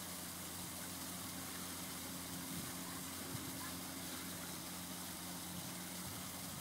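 Steady low machine hum over a constant hiss.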